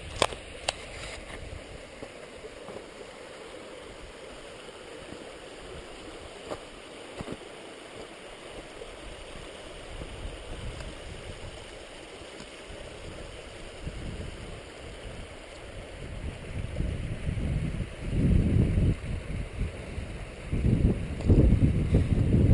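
Wind buffeting the microphone in irregular gusts that grow stronger in the second half, over a steady outdoor hiss.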